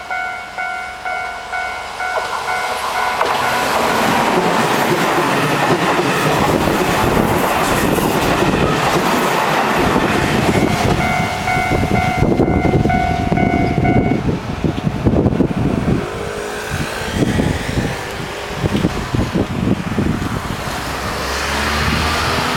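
Level-crossing warning bell ringing in quick repeated dings, then a Keihan Main Line electric train passing over the crossing from about three seconds in, the bell still heard through it for a few seconds midway. Toward the end the wheels clack rhythmically over the rail joints.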